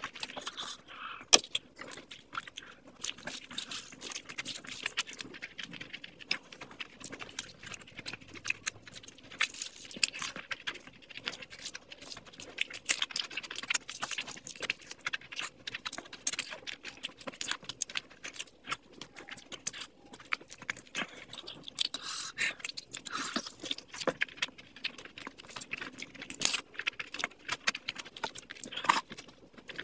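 Close-miked eating of chicken curry and rice by hand: chewing, lip smacks and wet, sticky squelches of curry-soaked rice being mixed and squeezed, as a rapid, irregular stream of small clicks and smacks.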